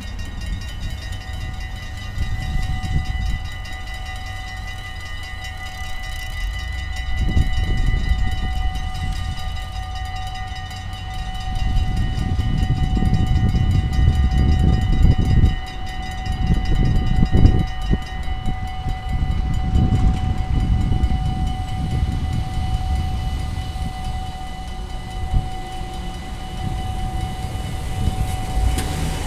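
Dutch level-crossing warning bells ringing continuously in a fast, steady peal, with a low rumble underneath that swells midway.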